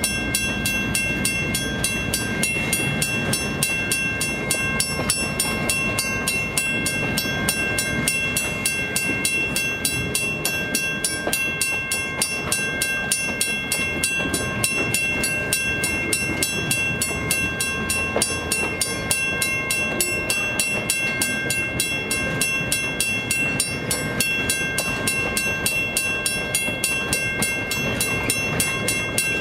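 Steel wheels of heavyweight passenger coaches rolling past on the rails at close range, a continuous rumble with a few steady high-pitched ringing tones above it.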